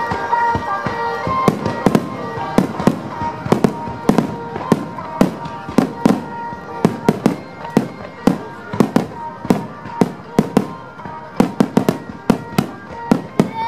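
Aerial fireworks shells bursting in rapid succession, dozens of sharp bangs at about two to three a second. Music with held tones plays underneath, clearest in the first couple of seconds.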